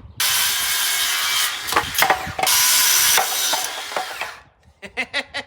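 A woodworking tool cutting or abrading old barn wood, in two spells of steady rasping noise, about one and two seconds long, with sharp clicks and knocks between them and near the end.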